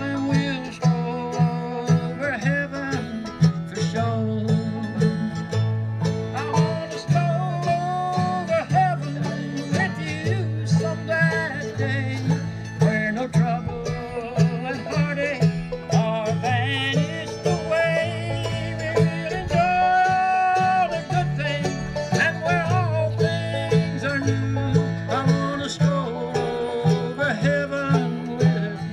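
Bluegrass string band playing: banjo, mandolin and acoustic guitar over an upright bass plucking alternating low notes in a steady beat.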